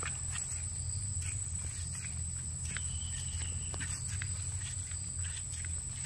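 Forest ambience: a steady high-pitched insect drone over a low rumble, with irregular light crackles and a short high note about three seconds in.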